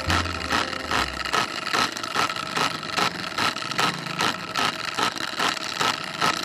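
A rhythmic mechanical rubbing or scraping, about three strokes a second, over a steady high whine. Low music tones fade out in the first second and a half.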